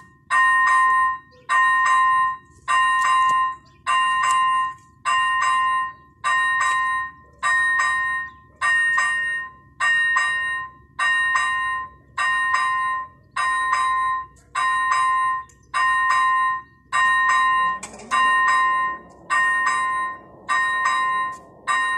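Level crossing warning bell ringing, an electronic ding repeated about once a second as the red light flashes, warning that a train is coming. In the last few seconds a faint rising motor hum joins in as the barrier arms lower.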